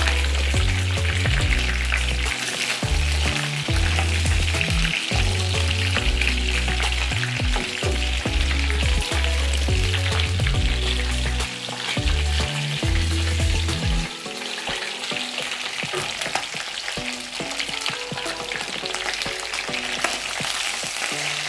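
Chicken pieces deep-frying in hot oil in a saucepan: a steady sizzle with constant fine crackling and popping. Background music with a bass line plays under it and stops about two-thirds of the way through.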